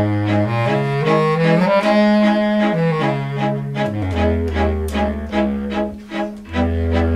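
Instrumental background music with sustained low string-like notes moving step by step under a melody.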